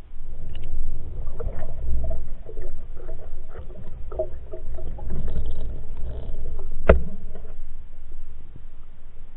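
Muffled low rumble of water movement and scattered knocks and rustles, heard through an action camera's waterproof housing during a swim, with one sharp knock about seven seconds in.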